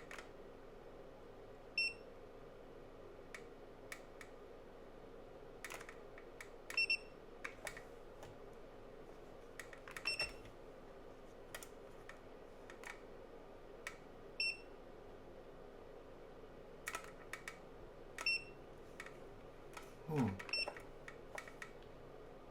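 Digital clamp meter beeping briefly about six times as its buttons are pressed, each beep on the same high pitch, with scattered sharp button clicks between them while a Bluetooth link to a phone is tried. A short low sound falling in pitch comes near the end.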